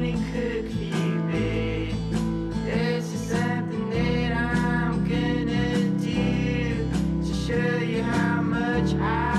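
Background song with acoustic guitar and a singing voice over a steady bass line.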